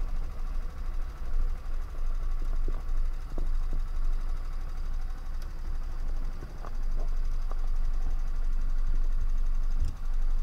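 Sodi rental kart's small engine running slowly as the kart rolls in, then idling steadily from about seven seconds in once it has stopped, over a low rumble.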